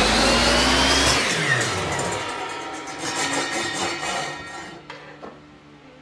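Benchtop table saw running at full speed, then switched off about a second in, its motor whine falling in pitch as the blade winds down.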